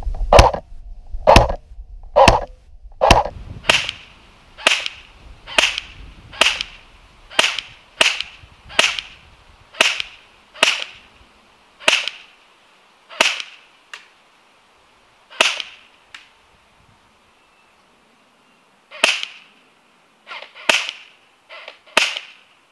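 G&G Firehawk airsoft electric rifle firing single shots, each a sharp crack, about one a second. There is a pause of about three seconds past the middle, then a few more shots in quicker succession with some fainter clicks near the end.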